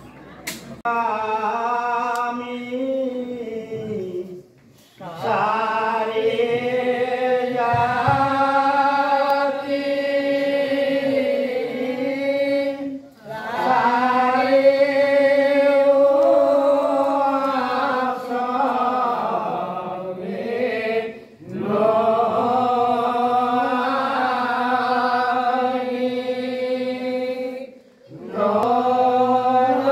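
Devotional chant sung by devotees in long, drawn-out phrases, each a few seconds long, with short pauses for breath between them.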